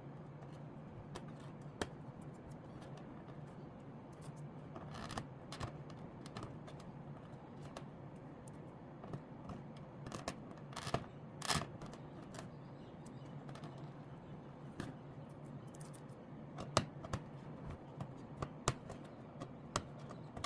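Irregular light clicks and taps, a few sharper ones around the middle and near the end, over a steady low hum.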